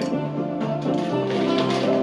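Instrumental background music with steady held notes.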